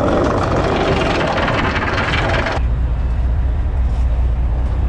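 Anchor chain running over the boat's steel bow roller with a continuous rattle that cuts off abruptly about two and a half seconds in. After that the boat's engine runs on with a steady low hum.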